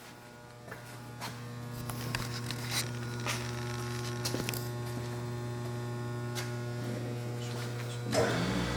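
Surface grinder's 2 HP spindle motor running with a steady electric hum, growing louder over the first few seconds and then holding even; the spindle runs quiet and smooth. A few faint clicks sound over it.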